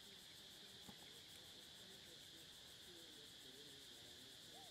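Faint insect chirring in the background: a steady high drone with a rapid, even pulsing above it. The rest is near silence.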